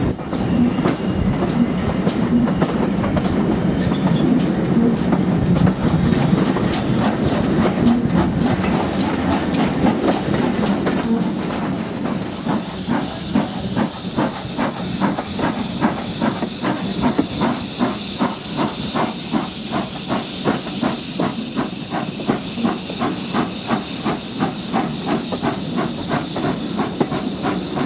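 Steam-hauled train running, heard from an open carriage window: a steady rumble and hiss. From about twelve seconds in, a fast, even rhythm of beats stands out.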